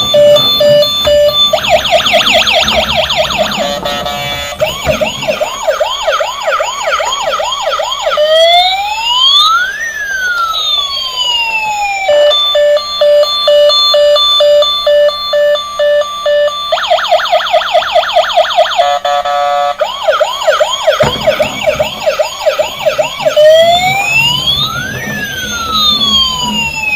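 Electronic toy siren from an RC emergency vehicle cycling through its patterns: steady beeping, a fast warble, a pulsing yelp, then a slow wail rising and falling, the whole sequence repeating about every fifteen seconds.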